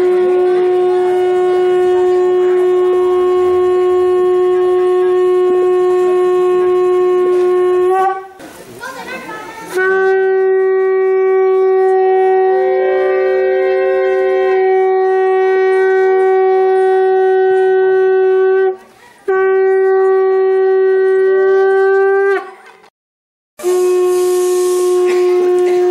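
Conch shells (shankha) blown by different players in turn, each sounding one long, steady note held for many seconds. The blasts break off briefly about eight seconds in, again shortly before twenty seconds, and once more a few seconds before the end, then start again.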